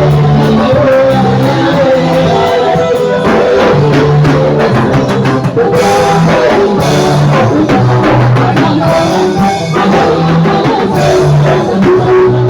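Band music with a drum kit, a bass line of held low notes and guitar, and voices singing along.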